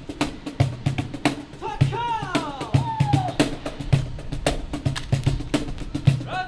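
Body percussion: a steady beat of low body slaps about twice a second, with sharp claps and snaps between them. About two seconds in, a voice slides down in pitch over the beat for a second or so.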